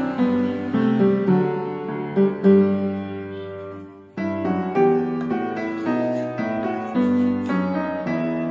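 Background piano music playing a slow melody of sustained notes. It fades away about four seconds in, then starts again abruptly.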